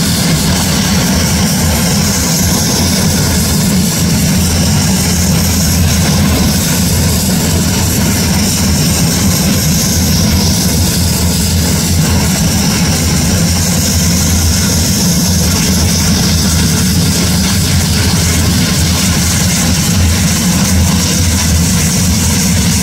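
Embraer A-29 Super Tucano turboprop engines running on the ground at low power: a loud, steady propeller drone with a high hiss above it.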